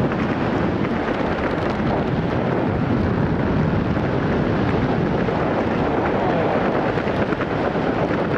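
Freefall wind rushing over the camera's microphone during a tandem skydive: a loud, steady rush of noise.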